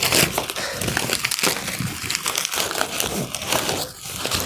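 Corrugated cardboard shipping box being torn and crumpled by hand: a continuous, irregular run of crackling and ripping.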